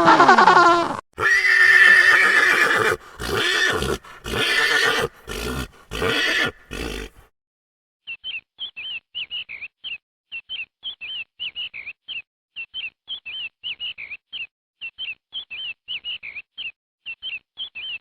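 A horse whinnying: one long call about a second in, breaking into a string of shorter calls that fade out. After a short gap, rapid high chirps follow, about three a second.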